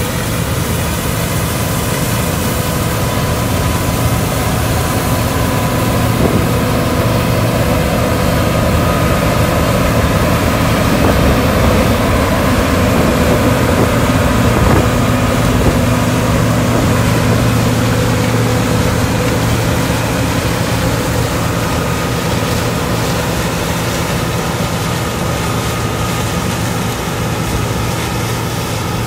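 John Deere 9870 STS combine harvester running under harvesting load, its engine and threshing machinery making a steady drone with several steady whining tones. It gets a little louder in the middle as the machine passes close by.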